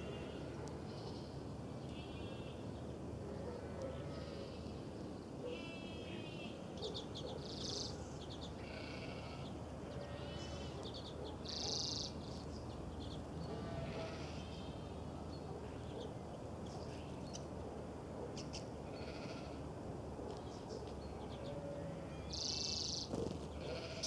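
Small finches, Eurasian siskins, twittering: quick buzzy trills and short high chirps come at irregular intervals throughout. A steady low hum lies underneath.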